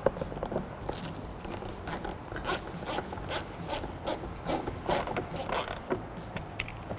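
Hand socket ratchet with an extension clicking in quick, uneven runs of strokes as it drives door-panel screws in.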